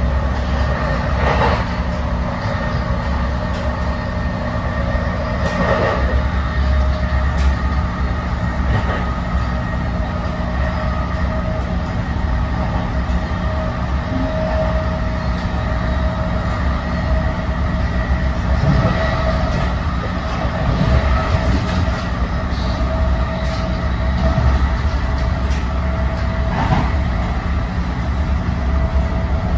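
Interior ride noise of an NJ Transit Multilevel passenger coach running at speed: a steady low rumble with a faint steady hum, broken several times by brief sharp knocks.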